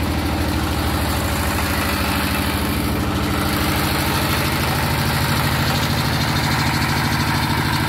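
Diesel engine of a brick-making machine running steadily with an even, rhythmic pulse.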